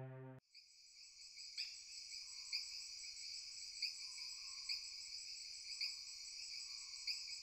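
A chorus of crickets chirping at night, a steady high trill with regular louder pulses, setting in just after a tail of music cuts off. A brief falling tone sounds about a second and a half in.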